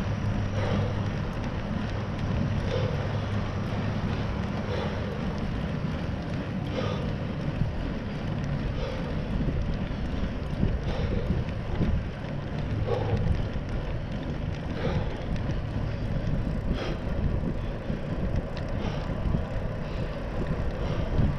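Riding a bicycle with a bike-mounted action camera: steady wind noise on the microphone over the rumble of tyres on the trail, with a faint tick about every two seconds.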